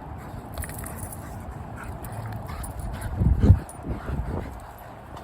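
Bully dogs playing, with scattered light clicks and scuffs and a short, loud, low-pitched dog vocal sound about three seconds in, followed by a few weaker ones.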